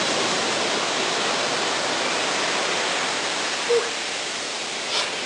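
Steady, unbroken rushing of water, an even hiss without swells or breaks.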